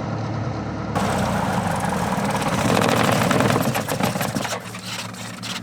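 Cessna 172S's four-cylinder piston engine and propeller running at low power with a steady low hum. From about a second in, a loud rushing noise sweeps over it for three or four seconds, then eases off.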